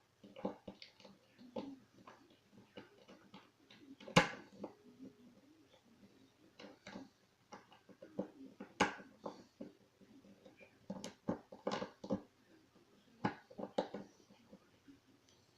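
Small metal clicks and taps from a pin-tumbler lock being handled and worked on while it is taken apart. A sharper knock comes about four seconds in and another near nine seconds.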